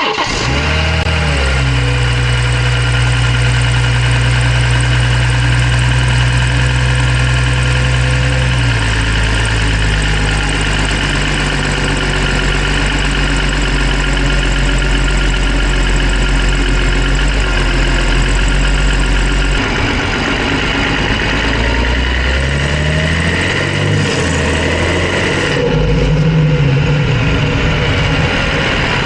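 BMW B58 3.0-litre turbocharged straight-six running: a steady idle, a step up in engine speed about a third of the way in, then several short revs rising and falling near the end. The owner is chasing a chirping sound that comes on under load, having ruled out the injectors, exhaust manifold bolts, auxiliary belt and tensioner, and lifters.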